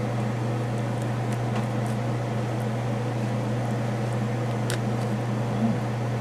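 Steady low hum of a running fan or appliance motor, with a few faint clicks of a knife and fork against a metal pizza pan.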